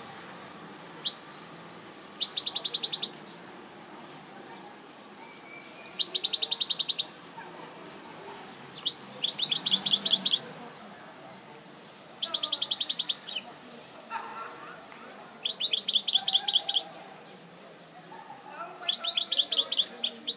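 European goldfinch singing: six short bouts of rapid, high twittering, each about a second long and a few seconds apart, with single chirps before some of them.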